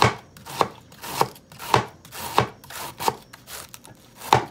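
Kitchen knife slicing through a head of cabbage, shredding it finely: a steady, even run of cuts, a little under two a second.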